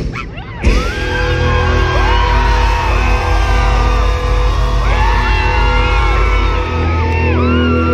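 Live pop-punk band crashing back in about a second in with full, loud distorted guitars, bass and drums after a brief break. Voices whoop and sing along over it in a large hall.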